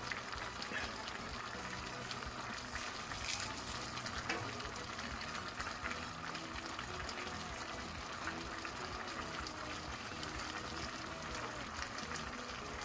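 Rabbit pieces and sliced onions cooking in a stainless steel pan on the stove: a steady quiet sizzle from the simmering juices, with faint scattered crackles.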